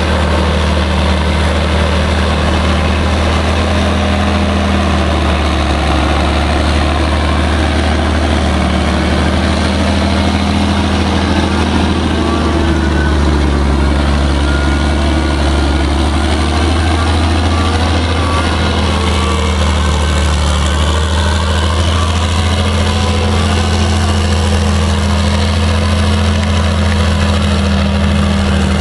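Caterpillar 633 elevating scraper's diesel engine running loudly and steadily with a deep, unbroken note as the machine works the dirt.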